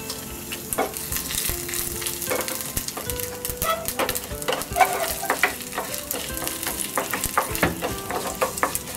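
Dried red chillies, mustard seeds and urad dal sizzling and crackling in hot sesame oil in a pan: a South Indian tempering (thalippu) being fried, with many small pops over a steady hiss.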